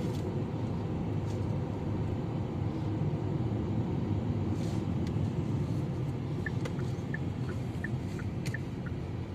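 Car cabin noise while driving: a steady low rumble of engine and tyres on the road. A few faint short high chirps come in during the second half.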